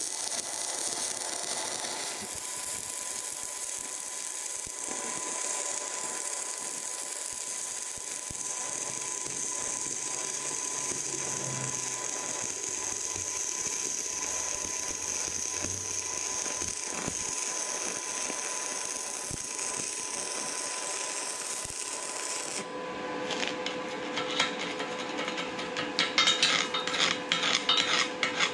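Stick (arc) welding: a steady crackling hiss as a bead is run on steel plate. About 23 seconds in the arc stops, and quick scraping strokes follow as slag is scraped off the fresh weld with a screwdriver.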